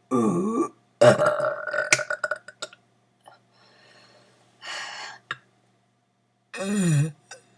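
Deliberate belches, burped attempts at saying words: a short burp at the start, a long loud belch about a second in, a softer breathy sound near five seconds, and another burp with a falling pitch near seven seconds.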